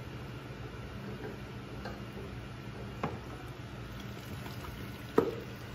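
Hydraulic oil draining from a just-removed log splitter oil filter into a plastic drain pan, a faint trickle, with a light click about three seconds in and a sharper knock about five seconds in as the filter is handled against the pan.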